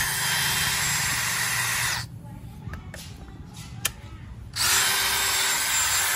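DeWalt DCD708 20V brushless compact drill/driver running with no load, its chuck spinning freely with a steady whine. It stops about two seconds in, then is triggered again about four and a half seconds in and runs on.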